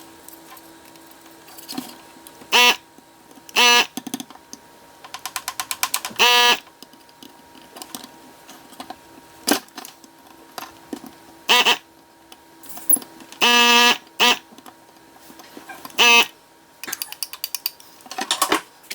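Short electric buzzes from a desoldering tool's vacuum pump, about six of them, each lasting a fraction of a second, as solder is sucked off the old capacitor's lead remnants. Runs of quick small clicks come between the buzzes, over a faint steady hum.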